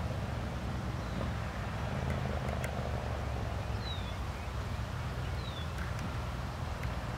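Mallard ducklings peeping faintly, two short falling notes about four and five and a half seconds in, over a steady low rumble.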